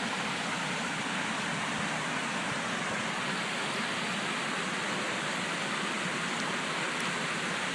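Steady, even hiss-like noise at a constant level, with no distinct events in it.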